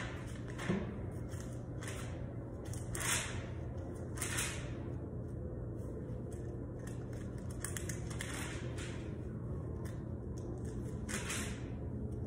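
Thin Bible pages being turned by hand: about five soft papery swishes a few seconds apart, with lighter rustles between, over a steady low hum.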